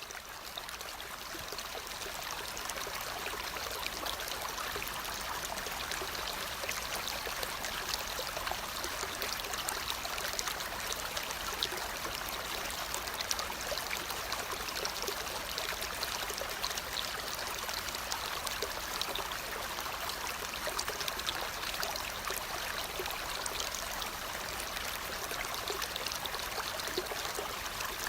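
Steady rush of flowing water, like a stream, swelling up over the first two seconds and then holding even.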